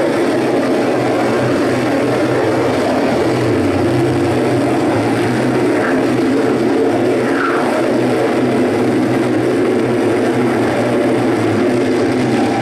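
Live electronic noise music from a tabletop rig of patched synthesizer modules and effects boxes: a loud, dense, steady rumbling drone, with a faint brief pitch glide about halfway through.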